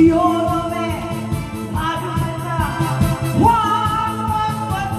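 A woman singing live into a microphone over instrumental accompaniment with a steady beat, holding long notes and rising to a higher held note about three and a half seconds in.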